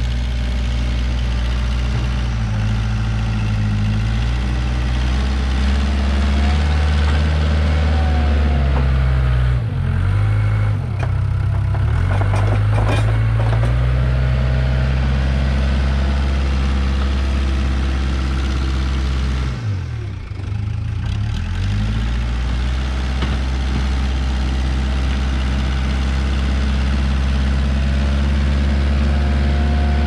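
Case 580K backhoe loader's diesel engine running steadily while the loader pushes snow. The engine note dips and picks up again twice, about a third of the way in and again about two-thirds in, with a few knocks near the middle.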